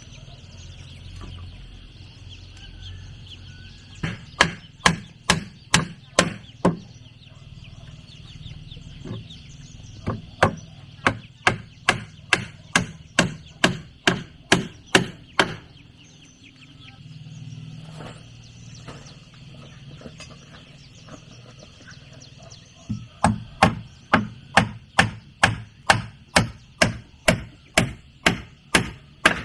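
A tool striking wood in three runs of steady, evenly spaced blows, about three a second: chopping or hammering timber for a wooden dog house.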